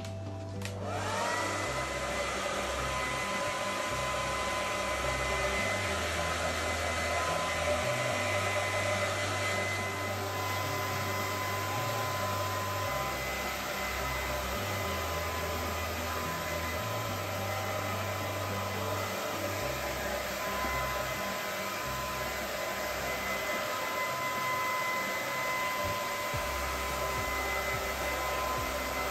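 Handheld hair dryer starting up about a second in, its motor rising to a steady high whine over the rush of blown air, then running steadily.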